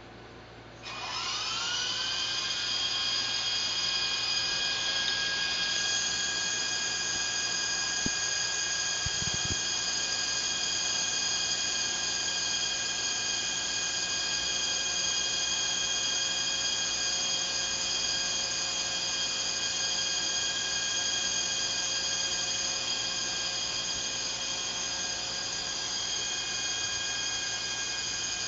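A small high-speed motor starts about a second in, its whine rising as it spins up, then runs at a steady high pitch.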